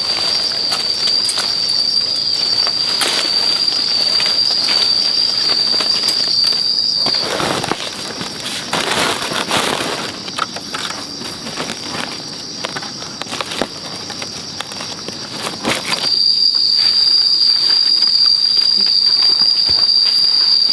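Cicadas in a continuous high-pitched buzz, which drops out for several seconds in the middle while rustling and handling noises take over; the buzz returns near the end.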